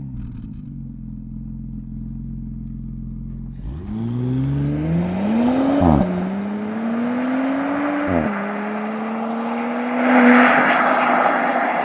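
Porsche Panamera 4's twin-turbo V6 on its stock exhaust, idling steadily and then accelerating away: the engine note climbs, drops at an upshift about six seconds in, climbs again and drops at a second upshift about two seconds later. Near the end the engine note fades under rushing road noise.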